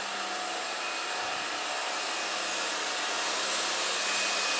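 New Kärcher electric pressure washer running: a steady motor hum under the hiss of the water jet, slowly growing louder.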